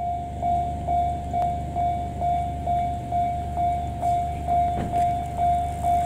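Japanese railway level-crossing alarm ringing its repeating electronic bell tone, about two strikes a second, the warning that a train is approaching. A steady low rumble lies underneath.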